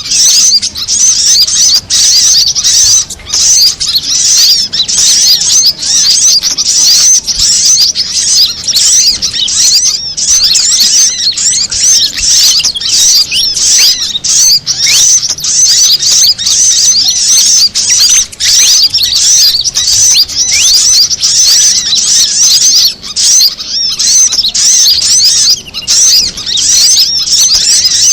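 Dense, unbroken high-pitched chirping and twittering of small birds, many quick calls and short pitch glides overlapping: a bird-lure recording combining fantail (kipasan) calls with brown-throated sunbird (kolibri kelapa) and female crimson sunbird (sogon) calls.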